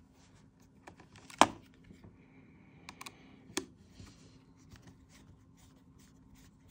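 Small screwdriver turning a hard-drive bay screw in a laptop's metal bracket: scattered light clicks and scrapes, the loudest about a second and a half in.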